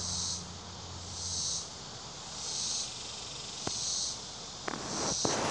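An insect calling in short high-pitched pulses, about one a second, which the boy recording takes for a locust. A few faint clicks near the end.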